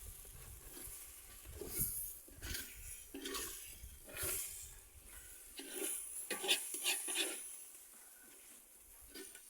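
A spoon stirring and scraping scrambled eggs in a cooking pan, in a series of irregular scrapes.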